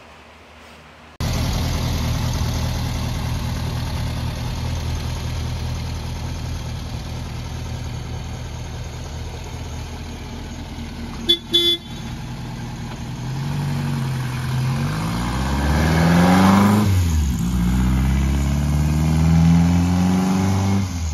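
Classic VW Beetle's air-cooled flat-four engine idling, then two short toots of its newly fitted horn. The car then pulls away, the engine rising in pitch, dropping once at a gear change and rising again.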